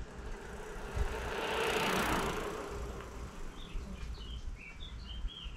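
A bicycle rolling past on an asphalt road, its tyre noise swelling to a peak about two seconds in and then fading, over a low wind rumble on the microphone. A few short bird chirps follow near the end.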